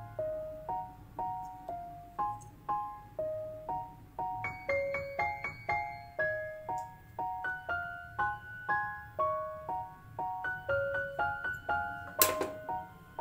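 Background piano music, a light melody of quick, evenly paced notes. A single sharp click near the end.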